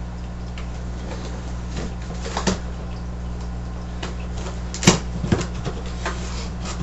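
Cardboard shipping box being opened by hand: the packing tape slit and the flaps pulled back, giving a few sharp scrapes and knocks, the loudest about five seconds in. A steady low hum runs underneath.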